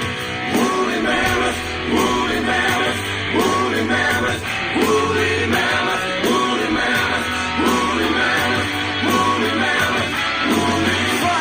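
A music track in a rock style, with singing over a steady beat and a short phrase repeating over and over. It starts abruptly at the opening.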